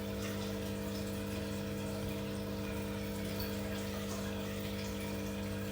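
A steady low hum made of several fixed tones, over a light even hiss.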